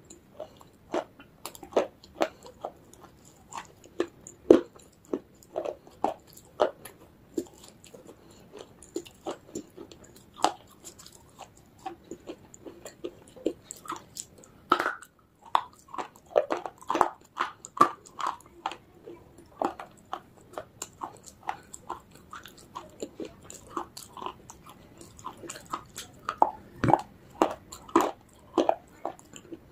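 Close-miked biting and chewing of baked clay discs (edible clay, 'Punjab ki mitti'): a steady, irregular run of sharp crunches, with a few louder bites among them.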